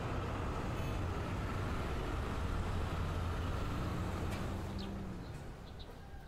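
Steady city traffic rumble, low and even, easing off about five seconds in, with a few faint bird chirps near the end.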